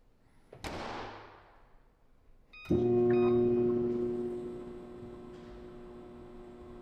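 A microwave oven door shutting, then two short keypad beeps about two and a half seconds in as the quick-start button is pressed twice. The oven then starts running with a steady hum, louder at first and then settling, for the heating stage after defrosting a frozen breakfast sandwich.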